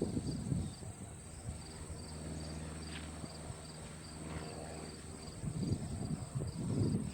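Insects, crickets by the sound, chirping steadily with an evenly pulsing high trill. Wind buffets the microphone at the start and again near the end, and a low steady hum runs through the middle.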